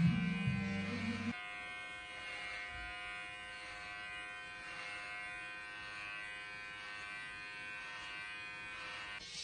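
Electric hair clipper running with a steady buzz as it cuts short hair over a comb. A louder low-pitched sound stops abruptly about a second in.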